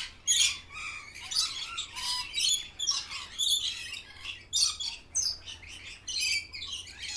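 Birds chirping and squawking in a rapid run of short, high-pitched calls.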